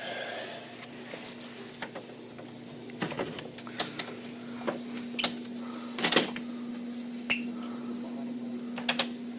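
Scattered small metallic clicks and taps from a door strike plate and latch being handled and tried, the loudest about six seconds in, over a steady low hum.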